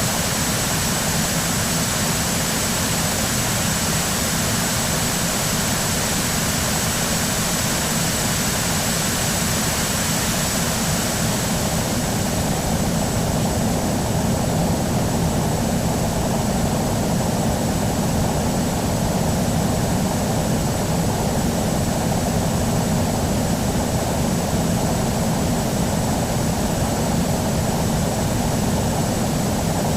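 Airbus A319 jet engines running steadily, a dense rush of noise with a thin high whine over it. The hiss and whine ease a little about twelve seconds in.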